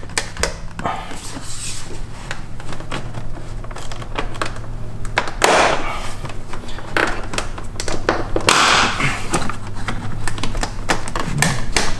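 Plastic door sill trim strip on a BMW E46 M3 being pulled up by hand, its retaining clips clicking and snapping loose one after another along its length, with two louder scraping rustles of plastic about five and a half and eight and a half seconds in.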